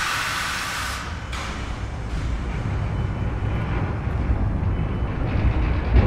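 Compressed air hissing loudly from a railway locomotive's air system, cutting off about a second in with a short puff just after. A steady low rumble follows and grows a little louder.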